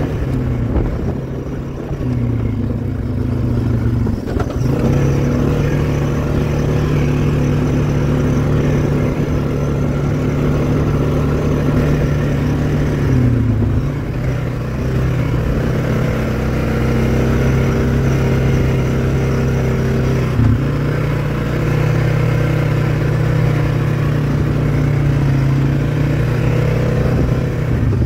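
ATV (four-wheeler) engine running steadily while riding, its pitch dropping and climbing back a few times as the throttle is eased and opened.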